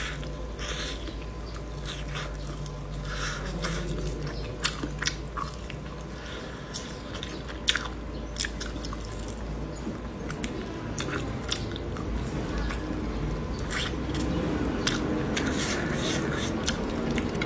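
Close-up biting and chewing of braised chicken frame pieces, with irregular sharp crunches and clicks as meat is torn and chewed off the small bones.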